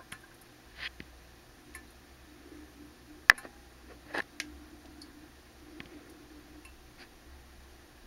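Scattered small clicks and ticks over a faint low hum, with one sharp click about three seconds in and a couple more just after four seconds.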